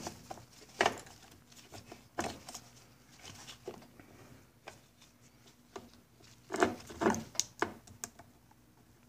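Hose clamp pliers and old spring hose clamps clicking and knocking against the metal fuel fittings of a Johnson 9.5 HP outboard's carburetor and fuel pump as the fuel hoses are worked off. The sounds are scattered single clicks, with a quick run of several about six and a half seconds in.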